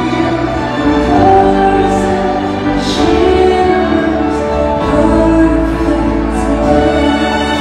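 A woman singing a slow ballad live, holding long notes over band accompaniment.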